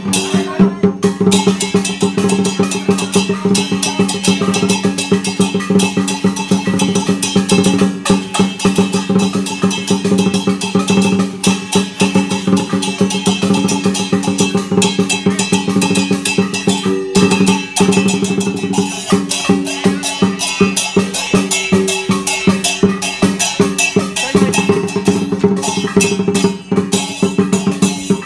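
Live dragon-dance percussion: a Chinese drum beaten in a fast, steady roll, with clashing cymbals and gongs ringing over it. There is a short break about seventeen seconds in.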